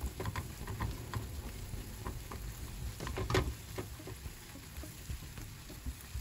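Sliced onions frying softly in oil and butter in a nonstick pan, stirred with a silicone spatula that makes scattered short scrapes and taps, the loudest about three seconds in.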